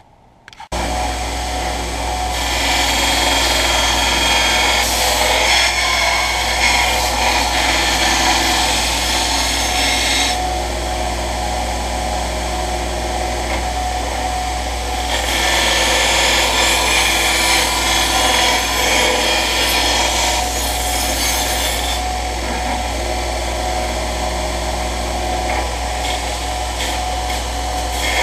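Small bench belt grinder running with a steady motor hum, as a blade of old scythe steel is pressed against the belt in long grinding passes of several seconds each. The steel is being ground smooth of burrs and undercuts before forging.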